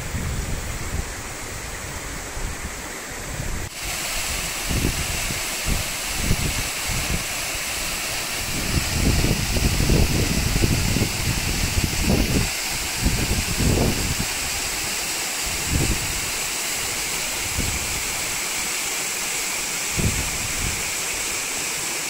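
Water of Güney Waterfall pouring down a cliff: a steady rushing hiss, with wind buffeting the microphone in irregular low gusts. For the first few seconds a smaller, thinner flow of a stream running over rocks is heard, then the sound changes abruptly to the fuller rush of the falls.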